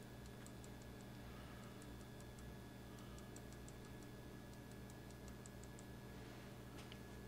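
Faint, quick ticks of a paintbrush dabbing on small painted model parts, coming in short irregular runs as the red paint is stippled and distressed, over a low steady room hum.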